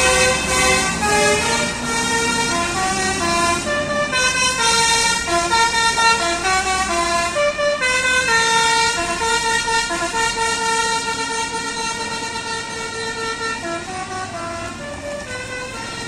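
Intercity bus telolet horn playing a long tune of held, stepping notes over the low rumble of the bus engine, growing fainter over the last few seconds as the bus moves off.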